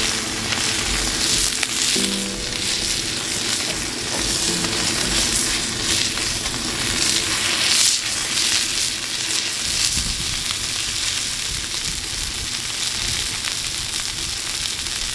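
Steady sizzling and crackling with many small ticks, and faint music fading out in the first two seconds.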